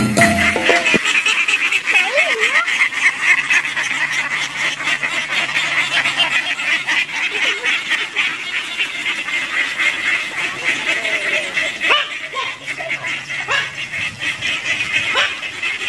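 A large flock of domestic ducks quacking together, a dense, continuous chatter of many overlapping calls.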